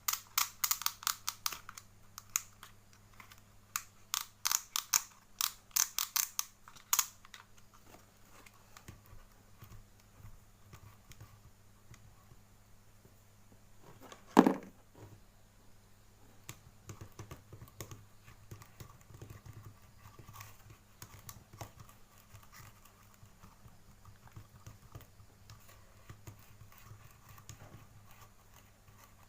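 Toy packaging being handled and torn open: a dense run of sharp crinkling clicks for the first seven seconds, then quieter scattered rustling, with one loud short sound about halfway through. A steady low hum lies underneath.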